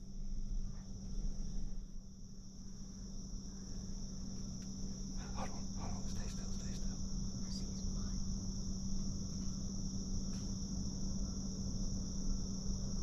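Steady, continuous high-pitched drone of insects in the woods, with a constant low hum underneath and a couple of faint ticks about five seconds in.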